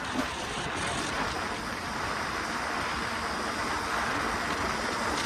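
2023 KTM 300 EXC single-cylinder two-stroke dirt bike riding along at steady speed, its engine running under throttle, blended with wind noise and growing slightly louder.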